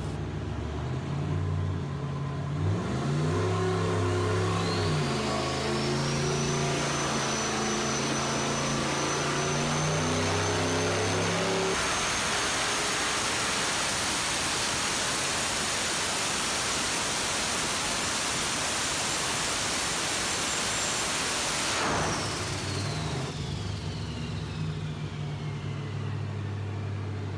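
Turbocharged 5.3-litre LS V8 with a single S475 turbo, running on an engine dyno. It idles with a brief throttle blip, then speeds up with the turbo's whistle rising high and runs at full load for about ten seconds. It then drops back to idle as the whistle winds down.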